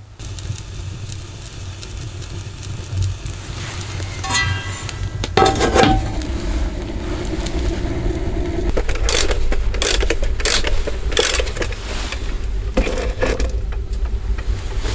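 Wood fire catching in a small metal wood stove: a steady low rumble with sharp cracks and pops. Near the middle there is a scrape and a ringing metal clank as the stove door is shut.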